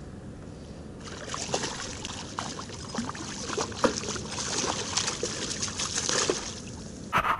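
Water splashing and trickling close to the microphone, with many small crackling drips and splashes starting about a second in. A louder burst of splashing comes near the end.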